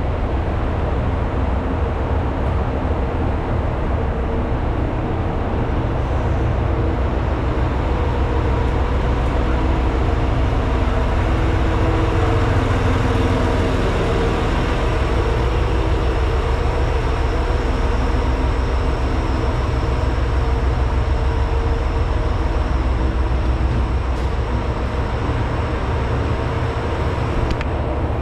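Diesel railcar running steadily along the line: a constant engine drone with wheel and rail noise.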